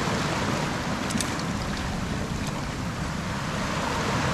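Sea surf washing against a rocky shore, a steady rushing noise with wind buffeting the microphone and a few faint clicks.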